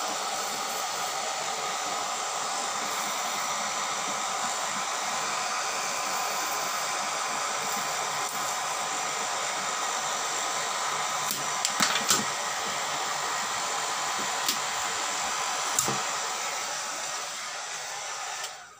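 Handheld hair dryer blowing steadily on an LED backlight strip, heating its adhesive so the strip can be peeled off the TV's metal back panel. A few sharp clicks sound about halfway through, and the dryer fades out just before the end.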